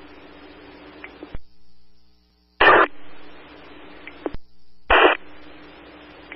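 Fire-department radio channel heard through a scanner feed between transmissions: open-channel static and hiss with a low hum, broken by two short loud bursts of noise about two and a half and five seconds in and a few sharp clicks as radios key up and unkey. The hiss cuts to silence twice.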